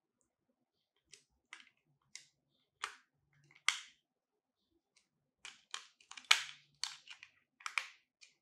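Hard plastic parts of a ring-light accessory being handled and fitted together: a run of sharp clicks and taps, a few spaced ones at first, then a quicker cluster in the second half, with the loudest snap about six seconds in.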